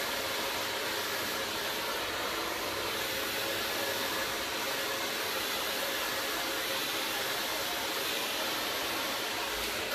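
CHI Air hair dryer with a pik comb attachment running steadily on the hair, blowing without a break.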